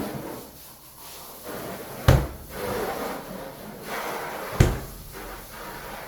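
Two sharp knocks, about two and a half seconds apart, of hard objects being handled, with scraping and shuffling between them.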